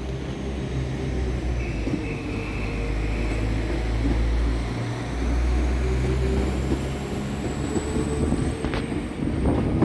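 Northern Class 195 diesel multiple unit moving off, its underfloor engines running steadily under power. The engine note shifts about halfway through, and a faint high whine sits above it.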